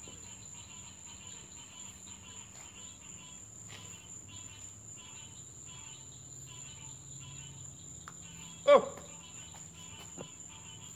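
Steady night-time chorus of crickets and other insects: fast, rhythmic trilling over a constant high-pitched whine. A man's short exclamation cuts through once, about three-quarters of the way in.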